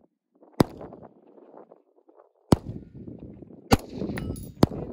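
AR-15-style rifle fired four times in slow, uneven succession, about one to two seconds between shots, each a sharp crack. Wind rumbles on the microphone between the shots.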